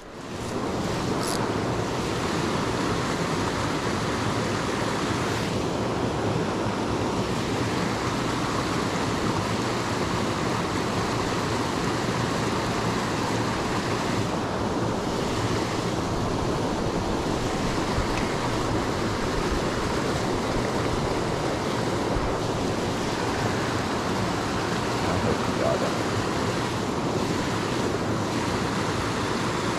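Small cascade in a mountain creek pouring into a rock pool: a steady rush of water that begins suddenly and holds even.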